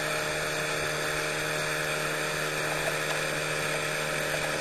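Motorboat engine running at a steady speed, an unchanging hum over a wash of noise as the boat moves along.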